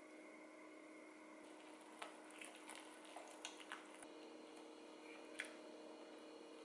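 Very quiet, wet squishing of flour-and-water batter being mixed in a glass bowl, with a few light clicks of a utensil against the bowl in the middle, over a faint steady hum.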